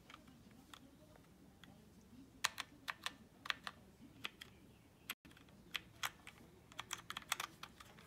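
Keys being pressed on a Dierya 60% mechanical keyboard with Outemu Brown switches: soft keystroke clicks, some single and some in short irregular clusters.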